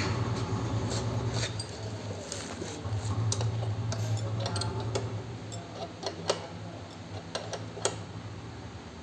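Scattered sharp metallic clicks and clinks as a nut and bolt on a seed drill's rear tube clamp are fitted and tightened by hand. A steady low hum runs underneath and is louder in the first half.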